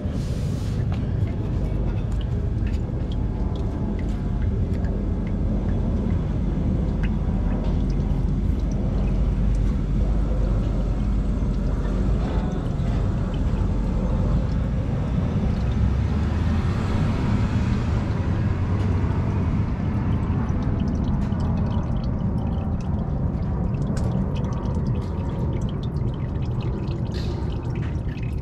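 Warm engine oil from a Scion tC's 2.4-litre engine draining in a steady stream from the oil-pan drain hole into a drain pan.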